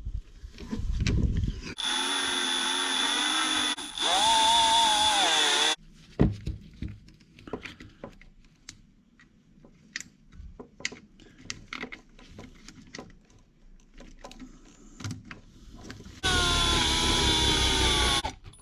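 Cordless electric screwdriver running in short spells, driving screws: two runs of a few seconds each with the whine shifting in pitch, then small clicks and ticks of parts and screws being handled, then another run near the end.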